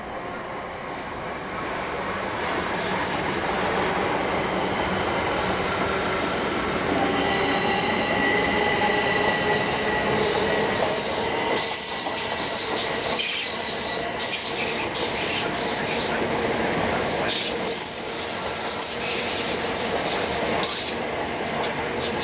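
Electric multiple-unit passenger train running past along the platform. It approaches with a rising rush and a held whine. From about nine seconds in, the coaches' wheels clatter rapidly over the rail joints, and this eases off near the end.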